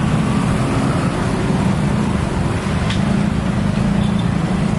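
Steady rumble of road traffic: several vehicle engines running and passing close by.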